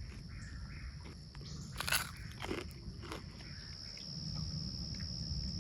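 Steady high-pitched insect drone, with a few short crunching clicks about two to three seconds in.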